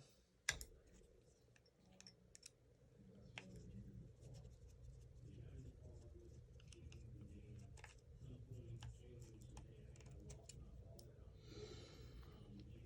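Near silence with a low room hum, broken by a few faint, sharp clicks and light rustling of small parts being handled.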